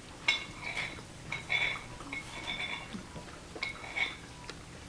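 Cutlery clinking and scraping against a dish several times, each knock ringing briefly; the sharpest clinks come just after the start and about four seconds in.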